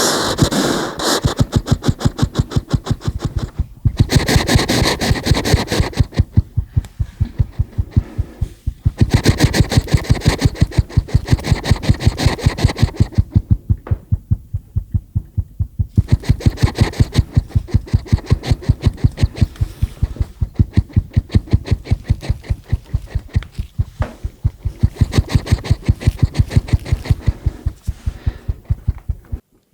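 European hedgehog snuffling and chomping close to the microphone: a fast, steady run of short snorts and chews, several a second, breaking off a few times.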